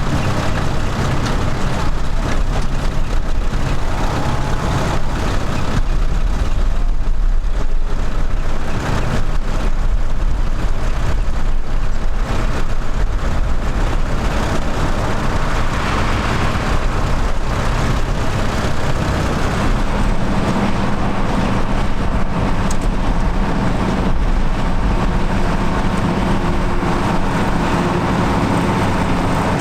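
Vintage tractor engines running steadily, with a stronger engine note coming in about twenty seconds in.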